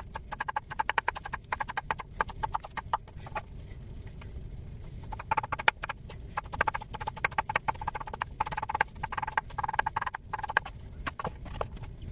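Kitchen knife chopping Korean zucchini on a wooden cutting board: rapid knocks of the blade on the board, thinning out about four seconds in, then quick again.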